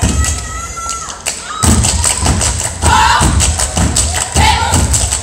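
Step team stomping and clapping in unison on a stage floor: heavy rhythmic thumps and sharp claps, with short shouted call-outs between them. Audience shouting and cheering dies away in the first second or so.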